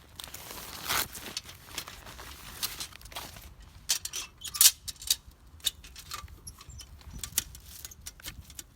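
Irregular light clicks and clatter, like small hard objects being handled and knocked together, with the sharpest click a little past the middle.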